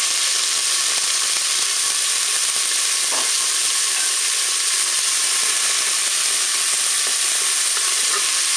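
Frozen sliced onions sizzling steadily in hot olive oil in a Cookeo multicooker bowl on its browning setting, with a wooden spoon stirring them near the end.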